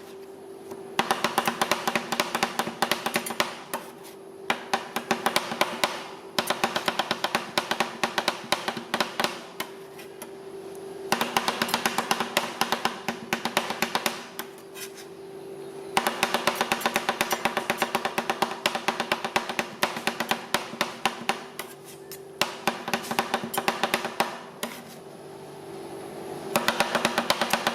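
Metal spatulas tapping and chopping rapidly on a frozen ice cream pan, in runs of several seconds with short pauses between them.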